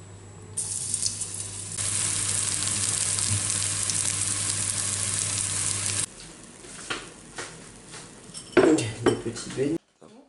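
Battered grasshoppers sizzling as they fry in hot oil in a pan. The sizzle starts about half a second in, grows louder a second later, and cuts off abruptly about six seconds in. After it come scattered clicks and a few louder knocks near the end.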